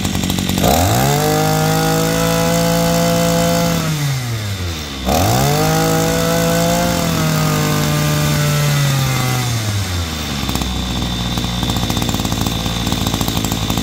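Maruyama 20cc two-stroke brush cutter engine revved up from idle twice, each time held at high speed for a few seconds before dropping back, then idling steadily.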